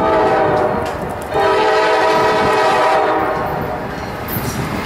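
Multi-chime air horn of a Norfolk Southern GE Dash 9-40CW locomotive leading a freight train, sounding for a grade crossing. It gives a short blast of about a second, then after a brief gap a longer blast of about two and a half seconds, over the rumble of the approaching train.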